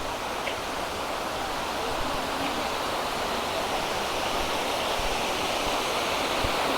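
Steady rush of falling water from the cascades of the Algar waterfalls, growing slightly louder.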